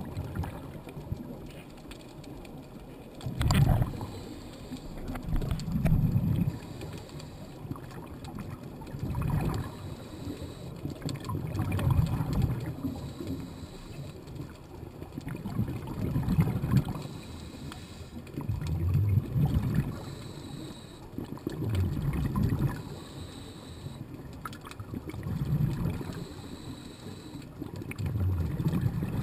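A scuba diver breathing through a regulator underwater: a low bubbling rumble of exhaled bubbles swells and fades about every three seconds, with a faint hiss between breaths.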